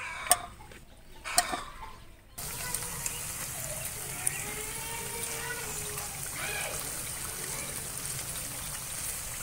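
Two sharp clicks of a steel slotted spoon against the pan. Then, from about two seconds in, jalebi batter spirals sizzle steadily in hot oil in a frying pan.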